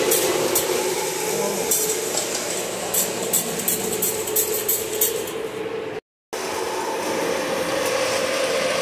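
Lionel model trains running on the layout: a steady hum with scattered sharp clicks. The sound cuts out briefly about six seconds in.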